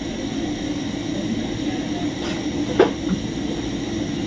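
Wooden rolling pin rolling chapati dough on a kitchen counter, a steady low rumble, with one sharp knock a little under three seconds in.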